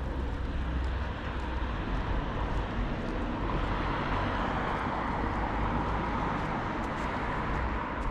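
Street traffic: a car passing, its tyre and engine noise swelling through the middle and easing toward the end, over a steady low rumble.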